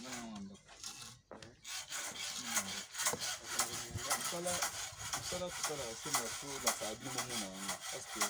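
Mason's trowel scraping and working cement mortar on concrete blocks, a rapid run of rough scraping strokes, with voices talking faintly underneath.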